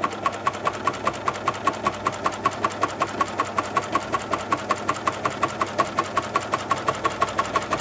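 Flatlock cover stitch machine running a test seam on knit binding through an 18 mm three-fold binder attachment: a steady motor hum with an even ticking about six times a second, stopping suddenly at the end.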